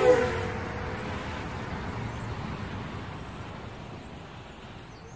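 Intro sound effect over the channel logo: a sharp hit with a falling tone right at the start, then a long rushing noise that slowly fades.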